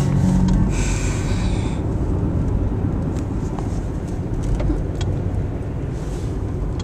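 Steady low rumble of a car's road and engine noise heard from inside the cabin, with a short burst of hiss about a second in.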